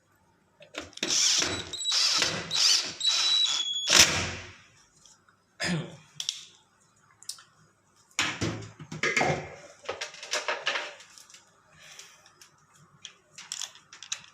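Hands fitting a replacement thermostat on a washing machine's heater: about four seconds of loud scraping and rattling, then scattered clicks and knocks.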